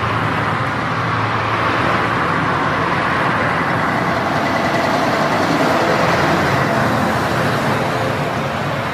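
Steady, even rushing noise of a running truck, with a faint high whine held on top.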